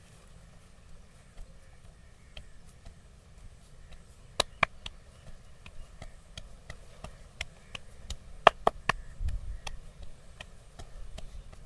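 Wooden massage sticks tapping on the body in an irregular run of sharp clicks, the loudest two about four and a half seconds in and three more close together about eight and a half seconds in, followed by a short low thump.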